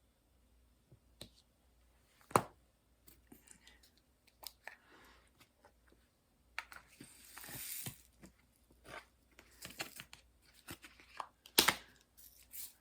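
Handling noises: scattered clicks and knocks, with a stretch of rustling and crinkling about seven seconds in.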